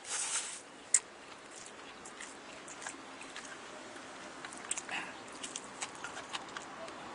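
Close-miked chewing and mouth sounds of a person eating a boxed lunch with chopsticks: a short noisy burst at the start, a sharp click about a second in, then scattered small wet smacking clicks.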